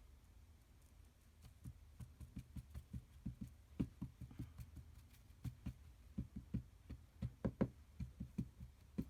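Quick, irregular soft taps and knocks on a craft table, two to four a second, from gluing paper pieces together with Tombow glue.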